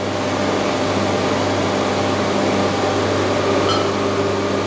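A machine running with a steady, even hum.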